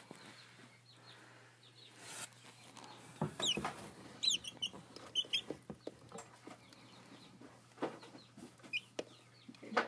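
Young chickens peeping and clucking in short, scattered high calls, a cluster about three to four seconds in and more near the end, with a few soft knocks among them.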